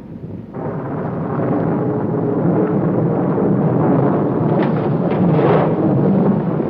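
Rolling thunder: a low rumble that swells about half a second in and keeps going, with a couple of brief sharper cracks near the end.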